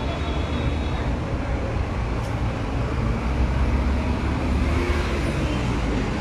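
Steady road traffic noise: a continuous low rumble of vehicle engines and tyres, with one engine droning more noticeably in the second half.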